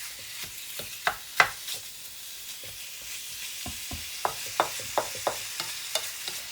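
Marinated meat sizzling as it stir-fries in a hot pan, with a spatula knocking and scraping against the pan. A few sharp knocks come about a second in, then a quicker run of taps through the second half.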